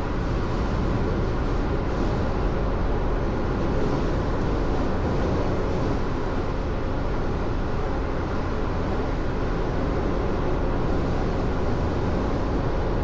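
Steady low rumble of road noise inside a moving car.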